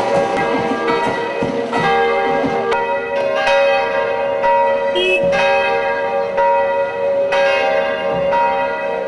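Church bells ringing: several bells struck again and again, their tones ringing on and overlapping.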